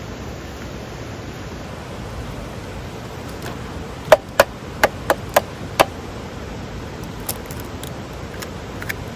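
Steady rushing background noise with a quick run of six sharp, ringing clinks about four seconds in, like small hard objects knocked together, then two fainter ticks near the end.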